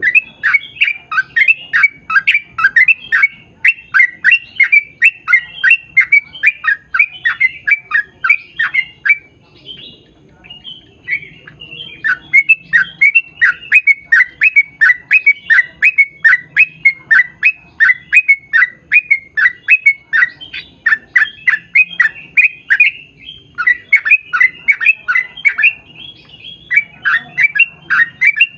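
Yellow-vented bulbul (trucukan) calling in a long, rapid run of chattering notes, about three a second, each a quick falling note. The runs break off briefly about nine seconds in and again about twenty-three seconds in.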